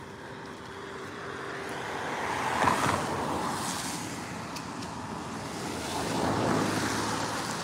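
A car going by on the road: tyre and engine noise swells to a peak about three seconds in, eases off, and swells again near the end with a low hum under it.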